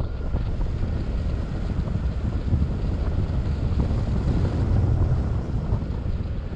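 Wind buffeting the camera microphone in paraglider flight: a steady low rumble of rushing air.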